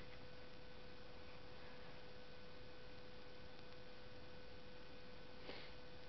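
A faint, steady hum on one even tone, with a single short click about five and a half seconds in.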